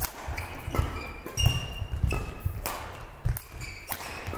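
Badminton rally on an indoor court: a series of sharp racket hits on the shuttlecock and footfalls, mixed with short high squeaks of court shoes on the floor.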